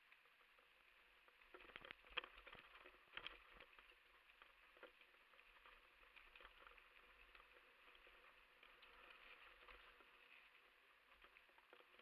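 Faint rattling and clicking of a mountain bike descending a rough dirt trail, with the bike knocking over bumps. A cluster of sharper knocks comes about two to three seconds in.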